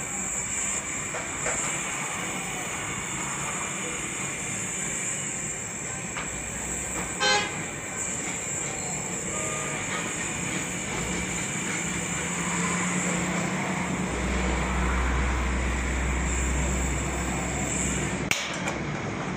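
Steady traffic-like background noise with a high, steady whine, a short pulsing tone about seven seconds in, and a low rumble swelling near the end, typical of vehicles passing with a horn sounding.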